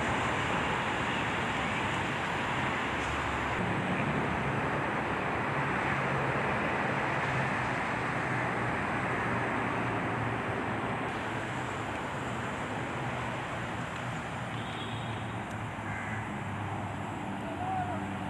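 Steady road traffic noise, a continuous hiss of passing vehicles with faint engine hum underneath.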